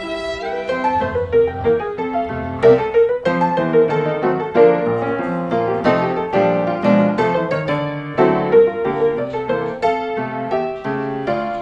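Background music played on piano, many notes in quick succession.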